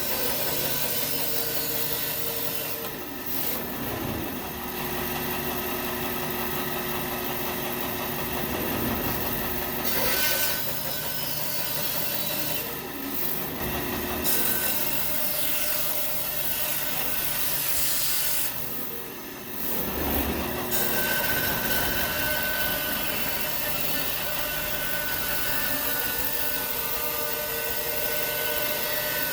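Bandsaw running and cutting through a log that is fed past the blade on a rolling sled. The cutting sound is steady and eases off briefly about three seconds in, again near the middle, and again around two-thirds of the way through.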